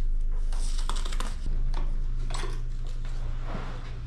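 Small metallic clicks, clinks and scrapes of a hand tool working at the tubing and fittings of a refrigeration condensing unit, scattered irregularly, over a steady low hum.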